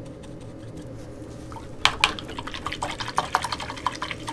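A paintbrush is rinsed in a jar of water: from about two seconds in, a quick, irregular run of wet clicks and taps, starting with two sharp ones, over a low steady hum.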